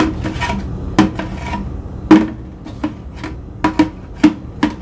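Cookies being poured into a container, clattering in as a run of irregular clicks and knocks, some louder than others.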